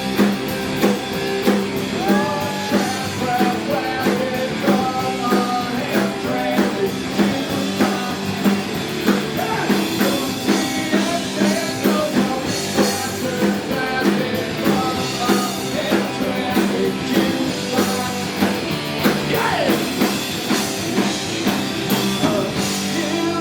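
Rock-and-roll band playing live, with guitar over a steady beat.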